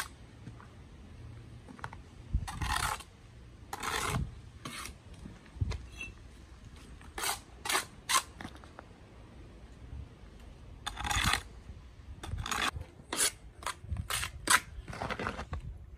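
Steel bricklaying trowel scraping wet mortar on concrete blocks in a dozen or so short, separate strokes, with a few dull knocks as blocks are handled and set down.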